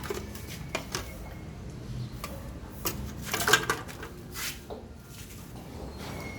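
Scattered clicks and knocks of tools or parts being handled, with a brief scraping rattle about three and a half seconds in, over a steady low hum.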